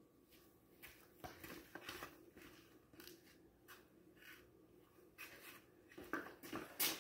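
Faint, scattered footsteps of rubber clogs on a concrete floor, with a few louder sharp knocks near the end.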